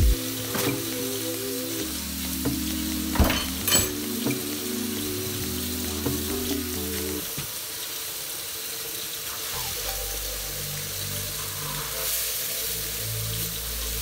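Diced onion, red bell pepper and garlic sizzling steadily in oil in a stainless steel skillet, with a few sharp clicks about three to four seconds in.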